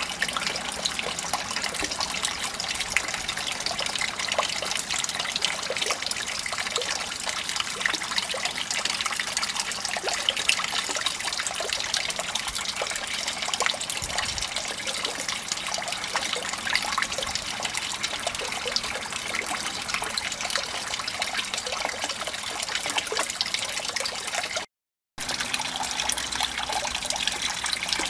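Water splashing and trickling steadily into a garden pond, a continuous fizzy rush full of small crackles, broken by a moment of silence near the end.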